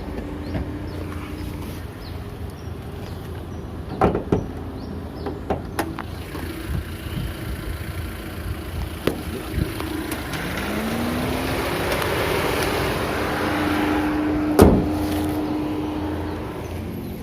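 Car sounds: a few sharp clicks and knocks, then a vehicle engine rising in pitch over a few seconds and holding steady. A single loud thump comes near the end.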